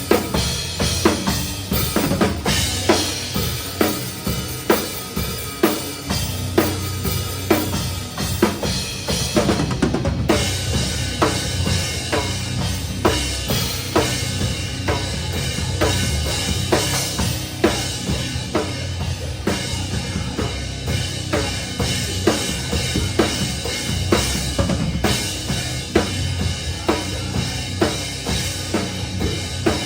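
A metalcore band playing live, heard from right beside the drum kit: driving bass drum and snare hits with cymbals stand out over the distorted guitars and bass.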